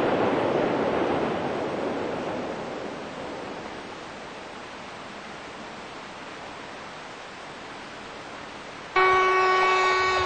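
A train's rumble across the gorge, fading away over the first few seconds. About nine seconds in, a diesel locomotive's horn starts suddenly and loudly, blowing a steady chord of several tones.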